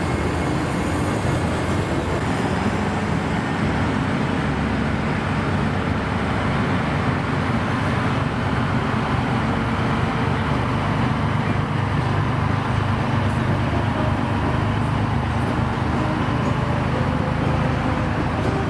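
A column of heavy 8x8 military missile-launcher trucks driving past, their big diesel engines running with a continuous low drone over tyre noise.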